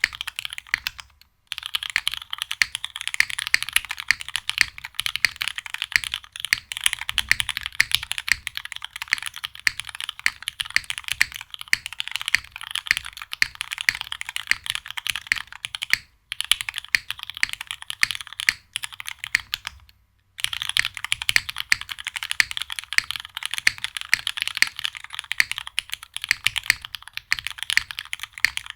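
Fast, continuous typing on a custom 60% mechanical keyboard with lubed Cherry Hyperglide Black linear switches, aluminum plate and GMK doubleshot ABS keycaps: a dense run of crisp keystroke clacks, broken by a few brief pauses.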